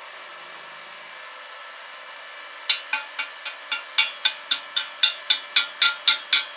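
A steady hiss, then, nearly three seconds in, a fast, even run of sharp ringing metallic taps, about four a second.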